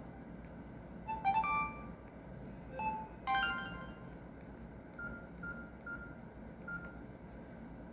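Samsung GT-E1151 mobile phone playing short electronic message alert tones: a quick run of beeping notes about a second in, another about three seconds in, then four fainter single beeps at one pitch.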